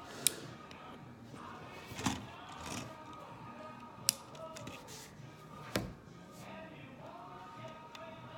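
Plastic LEGO pieces clicking and tapping as they are handled and pressed onto a model: four sharp clicks a second or two apart. Faint background music runs underneath.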